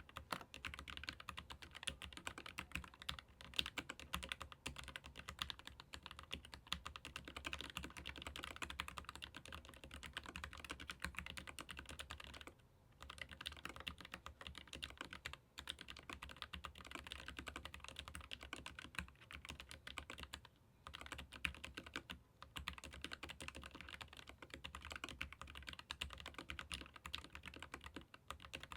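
Steady fast typing on a Keychron K15 Pro Max mechanical keyboard with Gateron low-profile red linear switches: a dense stream of key clacks broken by a few short pauses.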